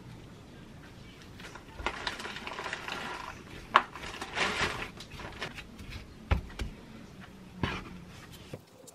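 Gloved hands kneading soft gnocchi dough on a floured wooden cutting board: rubbing and squishing, with a few knocks of the dough against the board, the sharpest just under four seconds in. A knife knocks through to the board near the end as the dough is cut in half.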